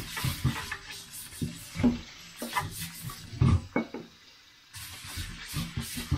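Dishes being washed by hand in a stainless-steel kitchen sink under a running tap: scrubbing and splashing with irregular clinks and knocks of a pot and utensils, and a brief pause about two-thirds of the way through.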